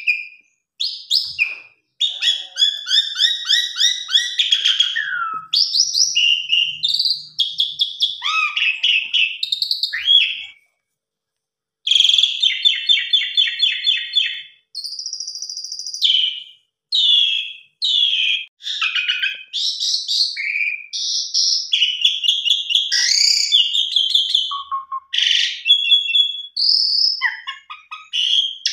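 Asian pied starling (jalak suren) singing a loud, varied song of fast trills, whistles and chattering phrases rich in mimicked calls, with a pause of about a second near the middle.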